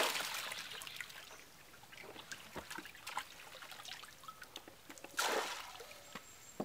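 Water pouring and dribbling off a plastic scoop lifted out of a water-filled net, fading over the first second or so, then small drips and light taps, with a second short pour about five seconds in.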